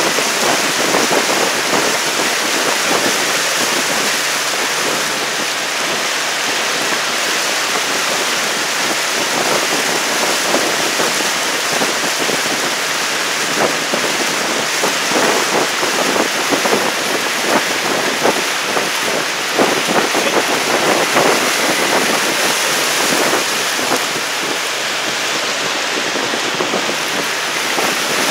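Steady rush of water from boats moving through calm sea water, with many small splashes and slaps, busier through the second half.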